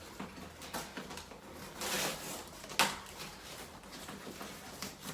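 Cardboard packaging being handled and opened: irregular scraping and rustling with a few sharp knocks, the sharpest about three seconds in.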